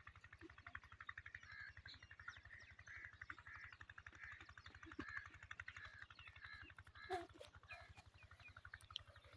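Faint birds calling and twittering, with a few lower animal calls about seven seconds in, over a fast, even low pulsing.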